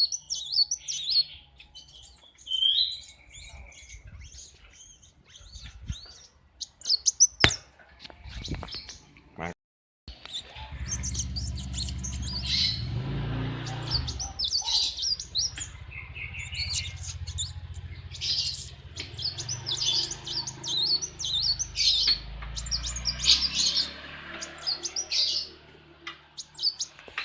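A sunbird (kolibri wulung) singing a long run of rapid, high chirps and twitters. Partway through, a low steady machine hum sets in underneath the song, and a few sharp clicks come before it.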